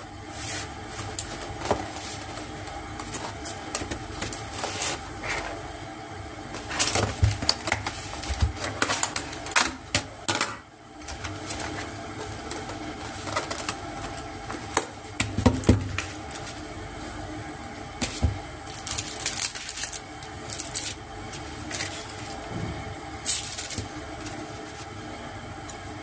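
Journal-kit items and packaging being handled: irregular rustling, light taps and clicks, with a few louder bursts of handling, over a steady background hum.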